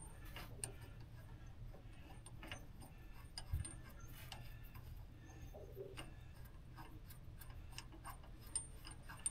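Faint, scattered metallic clicks and ticks of a hand working the nuts on the leaf spring U-bolts under the RV, over a low steady hum, with one soft thump about three and a half seconds in.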